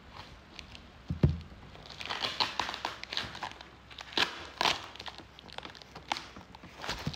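Cardboard box and plastic wrap being handled and pulled open: rustling and crinkling with sharp crackles, and a dull thump about a second in.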